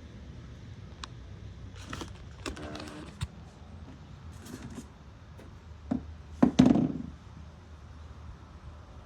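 Strong wind rumbling steadily, with a few sharp knocks and thuds through it; the loudest is a cluster of knocks about six and a half seconds in.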